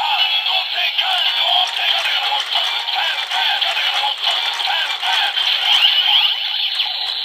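Build Driver transformation belt toy playing its electronic standby tune, a looping synthesized sing-song melody, while its side crank lever is turned, with rapid clicking from the cranking gears.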